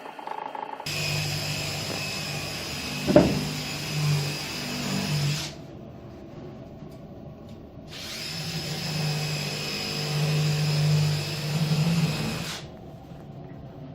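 Handheld electric power tool running in two spells of about five seconds each, with a steady whine, stopping sharply between them. A single knock comes about three seconds in.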